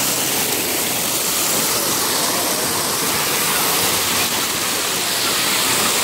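Water from an artificial rock waterfall pouring and splashing into a swimming pool: a steady rushing.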